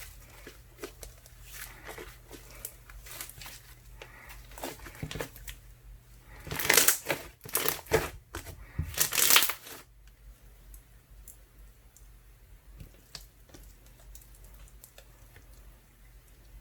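Jelly-like slime of ice slime mixed with soothing gel being squeezed and stretched by hand, giving a run of small crackling clicks and pops. A louder flurry of crackling comes about halfway through, then it goes back to sparse soft clicks.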